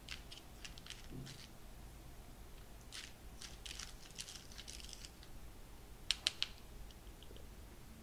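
A silicone spatula scraping and pushing flour and cocoa powder through a fine mesh sieve, heard as soft, irregular rustling strokes. Three sharp taps come about six seconds in.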